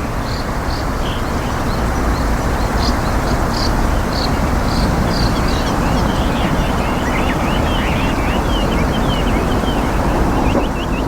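A zitting cisticola calling: short, sharp high notes repeated about twice a second, then small twittering chirps. Both sit under a loud, steady outdoor rumble.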